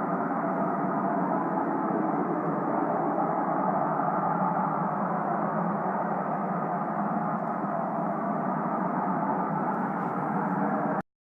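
A loud, steady droning hum made of many layered tones, with no rhythm and no break. It is one of the unexplained 'strange sounds' heard in the sky, of unknown source, and it cuts off abruptly near the end.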